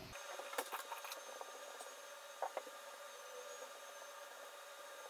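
Pen-style rotary tattoo machine running with a steady, faint hum as the needle works the skin, with a few light clicks about half a second to a second in and again at about two and a half seconds.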